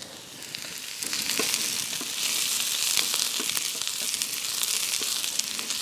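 Diced peppers, onions and garlic sizzling as they sauté in a frying pan over a wood fire, the sizzle growing louder about a second in. A spatula stirs them, making scattered light scrapes and taps against the pan.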